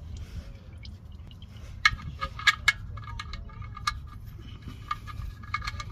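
Irregular sharp metallic clinks and taps, some with a short ring, as the drain plug with its new crush washer is threaded back into the oil pan and a wrench is fitted to it, over a steady low background rumble.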